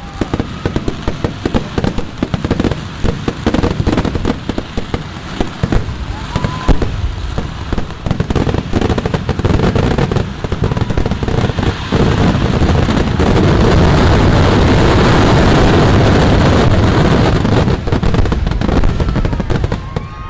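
Fireworks display: a dense run of rapid firecracker bangs that about twelve seconds in merges into one continuous rolling barrage lasting some six seconds, then thins out near the end — the finale of a Kerala temple-festival firework display.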